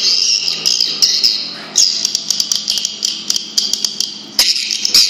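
A recording of swiftlet calls played through an amplifier's horn tweeters: a dense, continuous chatter of chirps and sharp clicks.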